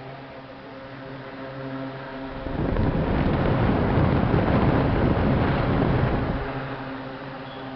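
Vintage General Electric oscillating desk fan running, its motor humming steadily. About two and a half seconds in, its airflow sweeps onto the microphone as it turns side to side, giving loud wind rush for about four seconds that fades as it swings away.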